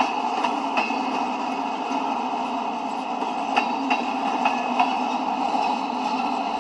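Manifest freight train's boxcars rolling past at steady speed, a continuous rumble and rattle of cars and wheels. Sharp paired clacks come a few times as wheel sets pass over the rail.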